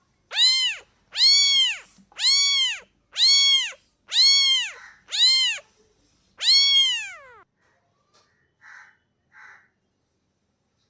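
Domestic cat meowing seven times in a row, about once a second, each meow rising then falling in pitch; the last meow is longer and trails off lower. Two faint short sounds follow near the end.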